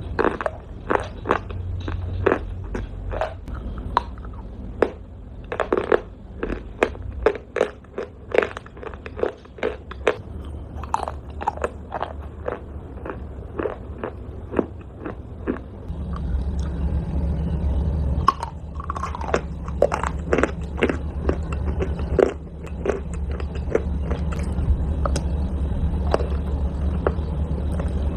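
Close-miked crunching of a person biting and chewing pieces of hard, chalky clay: sharp, crisp crunches come about one or two a second. About halfway through, a steady low hum starts underneath.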